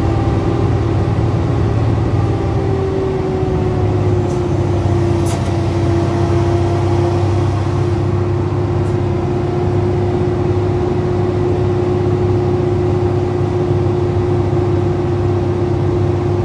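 Truck engine heard from inside the cab on a steep downhill, a steady drone with a strong held tone that dips slightly in pitch about two to four seconds in. A few faint clicks about four, five and nine seconds in.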